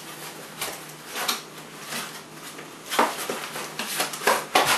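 Cardboard shipping box being pulled open and handled on a table: rustling and scraping of the cardboard flaps, with several sharper knocks and scrapes near the end.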